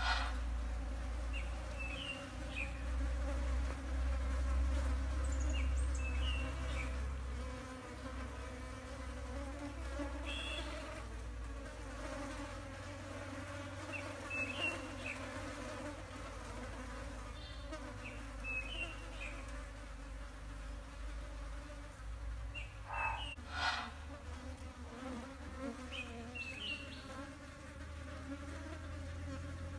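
Metallic green blowflies buzzing around a stinking elephant foot yam flower, a steady wavering drone, with short high chirps recurring every few seconds over a low steady rumble.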